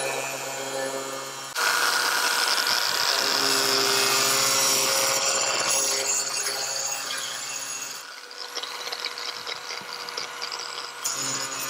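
Angle grinder with a thin cutting disc cutting through PVC pipe. The motor whines steadily, then about a second and a half in the disc bites and a loud, harsh cutting noise takes over until about eight seconds in. After that the cutting is lighter and more uneven, with the motor whine heard again, and it grows louder again near the end.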